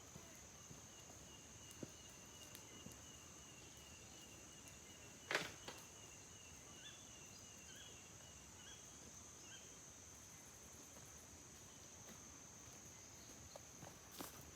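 Near silence with a steady, high-pitched insect drone and a few faint chirps; a single sharp click about five seconds in.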